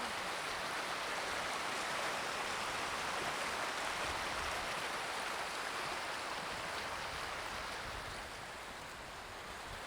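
Waterfall's rushing water, a steady even roar that eases slightly near the end.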